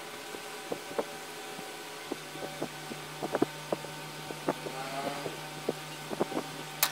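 Faint irregular ticks and crackles as a heated wire melts its way through the plastic base of a model car, over a steady hiss. A low steady hum joins about two seconds in, and a single sharp click comes at the very end.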